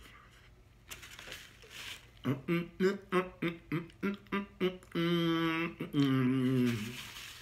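A man humming a quick run of short, bouncy notes, about four a second, then holding a long wavering note and a falling one, a wordless 'mm-mm' of delight while chewing food.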